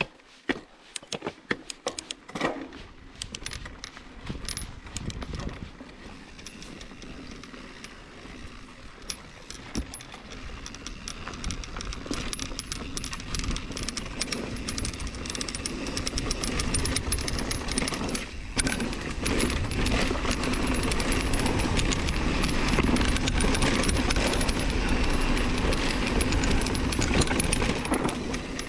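Mountain bike riding a rough trail: the chain and frame rattle and clatter over rocks and bumps. Under the rattle is a steady rush of wind and tyre noise that grows louder from about ten seconds in as the bike picks up speed.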